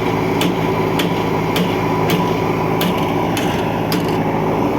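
A diesel engine running steadily, with a sharp metallic click about twice a second on top of it.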